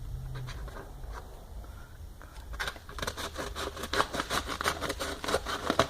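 A delivery parcel's packaging being cut and torn open: a quick run of scraping and crackling clicks that starts about two and a half seconds in.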